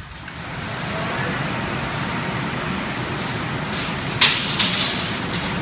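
Metal shopping carts clattering sharply twice as one is pulled out of a nested row, over a steady rumbling background noise.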